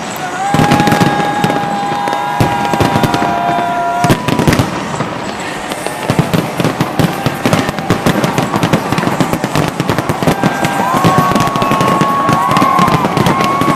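Fireworks display: a dense, continuous run of sharp bangs and crackling from many shells bursting.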